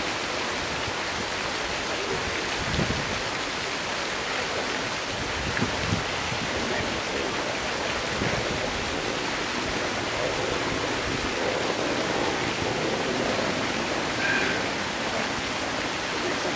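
Steady rush of running water from the enclosure's stream or waterfall.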